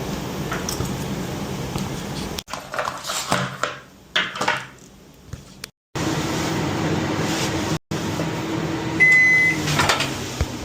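Microwave oven running with a steady hum and giving one short high beep about nine seconds in. In the middle there are several knocks and clatters of handling.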